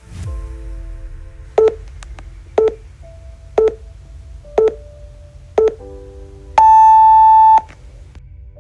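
Workout interval timer counting down: five short electronic beeps about a second apart, then one long, higher beep as the countdown hits zero to end the exercise interval. Soft background music runs underneath.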